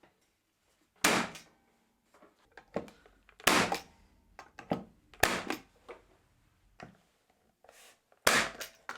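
Nail gun firing nails into glued 12mm plywood strips: four sharp shots a couple of seconds apart, with lighter knocks of the wood being handled between them.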